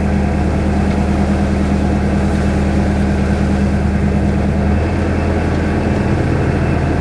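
A narrowboat's inboard diesel engine running steadily at cruising speed. Its note shifts about five seconds in.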